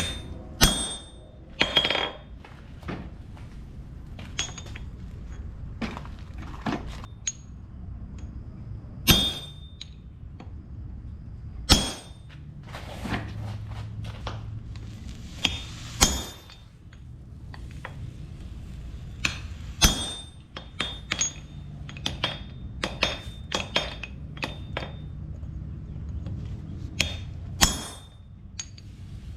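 Hammer blows on a railroad-spike axe head at the anvil: irregular, ringing metal strikes, some single and a second or more apart, some in quick clusters. A steady low hum runs underneath.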